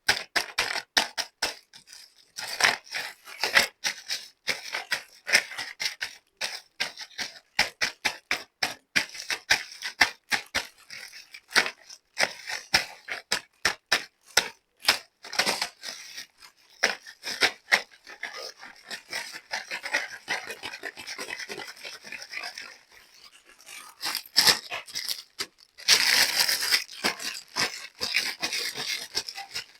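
Small plastic toy kitchen pieces clicking and tapping as they are handled and unpacked. Near the end there is a spell of dense crinkling, like plastic packaging being torn open.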